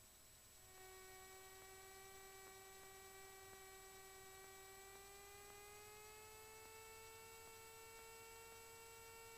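Near silence on the cockpit intercom audio feed. The only sound is a faint, steady electrical whine with overtones that rises slightly in pitch about halfway through.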